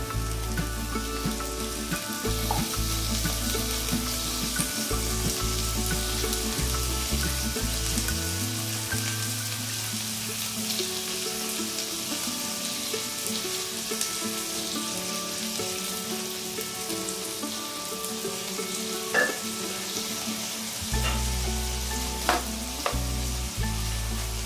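Diced pig's ear and garlic sizzling in hot oil in a nonstick frying pan, a steady hiss. Near the end a metal spatula stirs the mix, with a few sharp taps against the pan.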